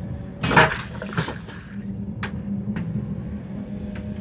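A vacuum toilet on a Virgin Pendolino train flushing. A sudden loud rush of suction comes about half a second in, then a couple of shorter rushes and a few sharp clicks, over the steady low hum of the train.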